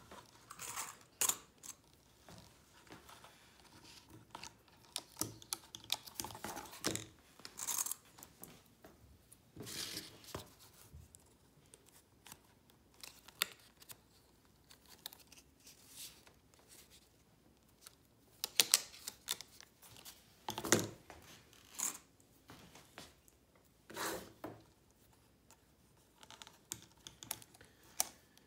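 Hands fitting pieces of card and small metal bulldog clips onto the corners of a book board: scattered short clicks and taps with card rustling, loudest in a cluster of clicks about two-thirds of the way through.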